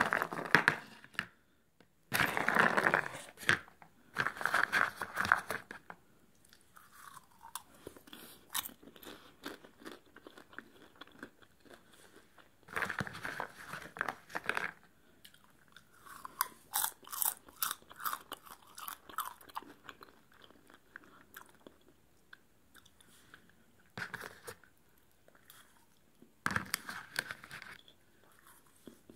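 Close-miked mouth eating salted popcorn: loud crunching bites in bursts of a second or two, with quieter stretches of softer chewing in between.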